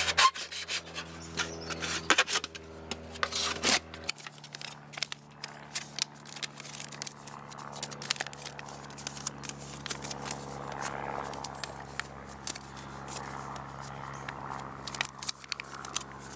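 Thin aluminium foil tray being cut with a large knife and then bent and crinkled by hand: irregular crackles, scrapes and crinkling throughout, over a faint steady low hum.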